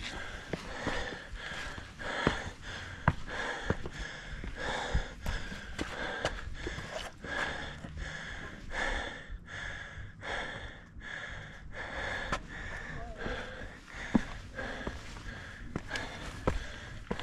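A hiker breathing hard and fast, about two breaths a second, winded from climbing a steep trail at altitude. A few sharp clicks are scattered through it.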